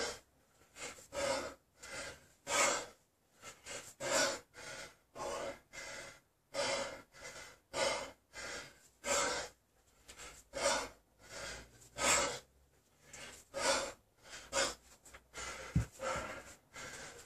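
A man breathing hard in quick, heavy gasps, about two a second, from the exertion of a long set of 32 kg kettlebell snatches. Near the end, a single dull thud as the kettlebell is set down on the floor.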